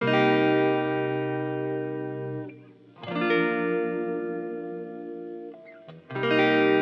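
Electric guitar with effects playing slow sustained chords: three chords, each struck and left to ring, about three seconds apart.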